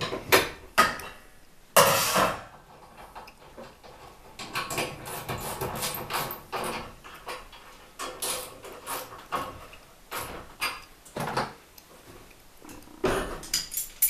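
Steel winding bars clinking and knocking against the winding cone and shaft of a garage door torsion spring as the spring is wound up a quarter turn at a time. Irregular sharp metallic clicks, with one louder knock about two seconds in and a cluster near the end.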